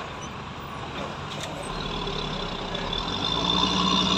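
Motor vehicle running, heard from inside the cab: a steady engine and road rumble that grows gradually louder, with a faint steady high whine coming in about halfway.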